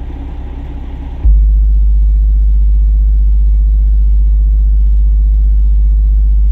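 A single 10-inch subwoofer in a semi-truck cab playing one very loud, steady bass test tone of about 50 Hz for roughly six seconds: an SPL burp at the setup's peak frequency. The tone starts abruptly about a second in over a steady engine-like rumble.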